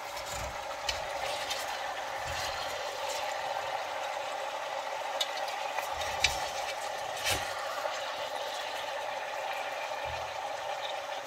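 Cubed pork fat sizzling as it starts to render in an enameled cast-iron Dutch oven. A metal slotted spatula scrapes and clinks against the pot a few times as the fat is turned up from the bottom.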